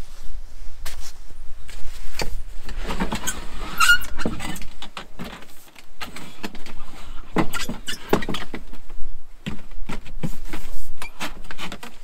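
A heavy portable generator being shoved and shifted about on a plywood shed floor, with footsteps on the boards: irregular knocks, bumps and scrapes, and a short squeak about four seconds in.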